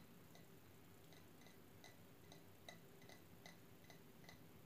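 Near silence: faint, slightly uneven clicks about twice a second over a low steady hum.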